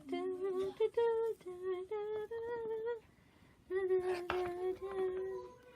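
A voice softly singing a slow, lullaby-like tune in held notes, with a short pause about three seconds in.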